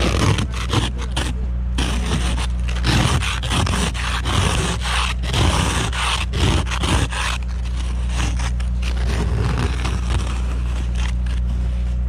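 Plastic ice scraper on a handheld snow brush scraping packed snow and ice off a car windshield in repeated rough strokes, heaviest for the first seven seconds or so and lighter after. A steady low engine hum runs underneath.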